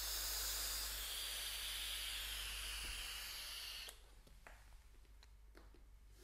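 A steady, bright hiss of smoke being released for a smoke shot, lasting about four seconds and cutting off abruptly, followed by a few faint clicks.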